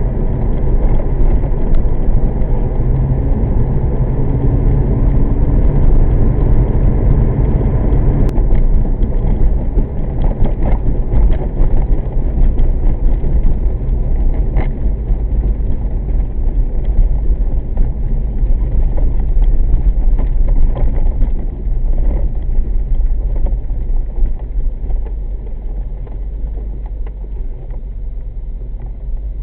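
1998 C5 Corvette's LS1 V8 engine and road noise while driving, a loud steady low rumble that eases off somewhat about two-thirds of the way through.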